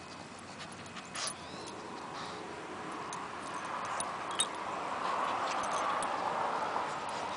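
Pekingese dog sniffing close to the microphone and giving faint whimpers, over a steady hiss that swells through the middle seconds, with a few light clicks.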